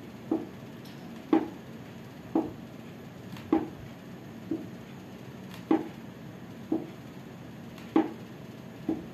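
Soft knocks repeating about once a second, nine in all, over a low steady room background.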